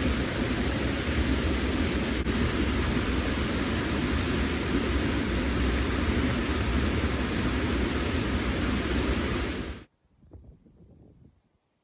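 Steady rush of flowing stream water, cutting off abruptly about ten seconds in.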